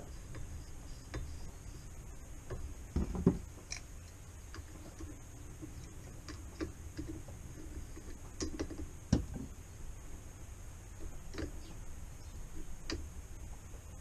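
Light scattered clicks of metal hand work as the air-spring top cap is tightened into a RockShox Recon Silver RL fork leg, with two louder knocks about three seconds in and again about nine seconds in.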